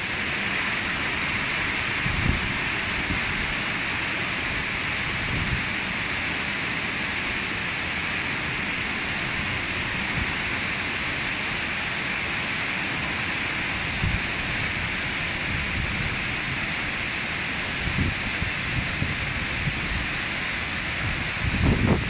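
Waterfall's steady rush of falling water, with a few brief low thumps, more of them near the end.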